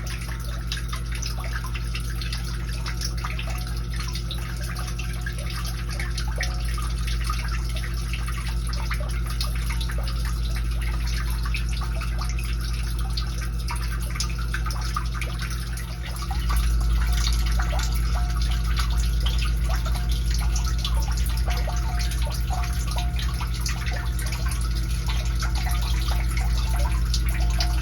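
Sump pump running, a steady electric motor hum under the sound of water splashing as it pumps the pit down, with its cleaned diaphragm pressure switch back in place. The low hum grows louder about two-thirds of the way through.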